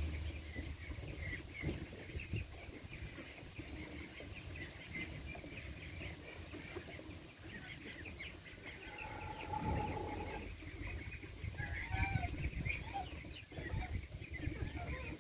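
Chickens clucking in a farmyard, with many short calls and one longer steady call a little past the middle, over a low rumble of wind on the microphone.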